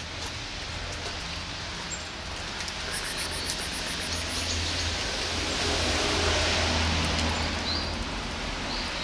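Rain falling on wet pavement: a steady hiss that swells louder for a few seconds in the middle.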